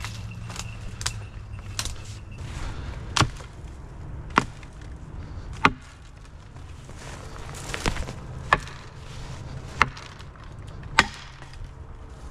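A series of sharp, dry woody knocks and snaps, roughly one every second or so, like sticks or brush being struck or broken.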